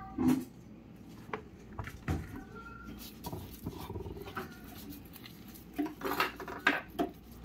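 Gloved hands stuffing rice filling into a hollowed eggplant, giving soft rustles, squishes and light knocks against the plate and pot. A few short, louder sounds come just after the start and again around six to seven seconds in.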